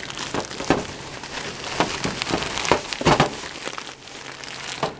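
Thin plastic shopping bag rustling and crinkling as a hand rummages through it, with irregular sharp crackles.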